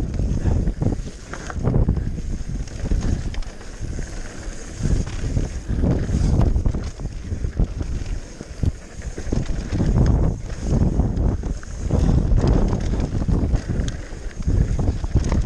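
Wind buffeting the microphone while a mountain bike is ridden fast down a rough trail, with the bike rattling and knocking over the bumps.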